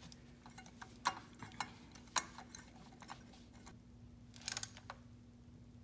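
Light, irregular metallic clicks and taps of a spark-plug socket on a long extension as a new spark plug is threaded into the cylinder head by hand, with a louder short cluster of clicks about four and a half seconds in.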